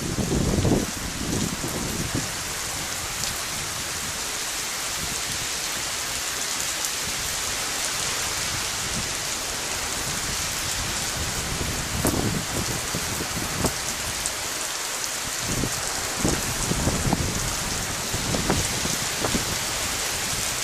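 Heavy rain falling, a steady hiss, with brief low rumbles about a second in and several more in the second half.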